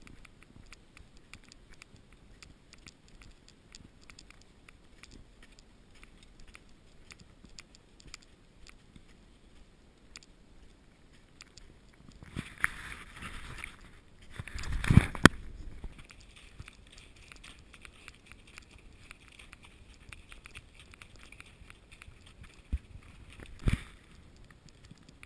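A ridden Icelandic horse moving along a packed snow trail: its hoofbeats and tack make a steady run of light, even ticks. There is a louder rushing noise about halfway through and a sharp knock near the end.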